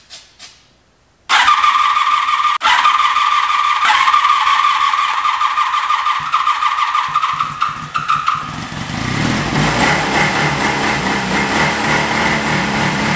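1983 Honda Magna's V4 engine cranking on its electric starter with a steady whine, then catching about seven to eight seconds in and running on its own, the first start after sitting for about 13 years, fed through its carburetors.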